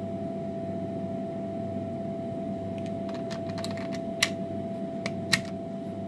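Keys being pressed on the Emco Compact 5 CNC lathe's control panel: a run of light clicks about three seconds in, then two sharper clicks about a second apart. Underneath runs a steady machine hum with a constant mid-pitched whine.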